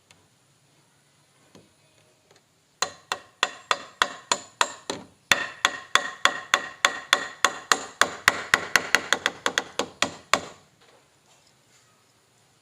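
Hammer striking repeatedly in woodworking, fast even blows of about five a second, each with a short ringing tone. The blows start about three seconds in, pause briefly, then run on for about five seconds more before stopping.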